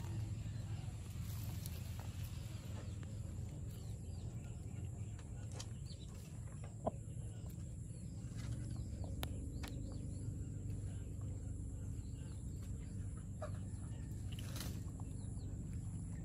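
A cat chewing and tearing blades of grass, a few scattered soft crunching clicks over a steady low hum.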